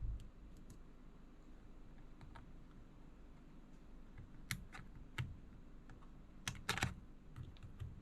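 Scattered light clicks and taps from small parts and cables being handled on a phone repair bench, with a clump of quick clicks a little before the end and a dull thump at the very start.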